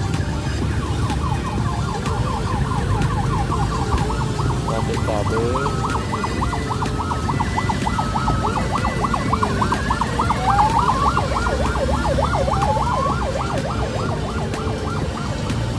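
A siren-like warbling tone, rising and falling several times a second without a break, over a steady low rumble.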